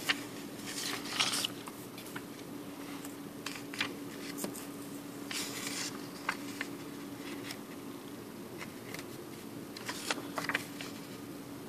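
Banknotes rustling and crinkling in short bursts as they are picked up, moved and turned over by hand on a wooden table, over a steady low hum.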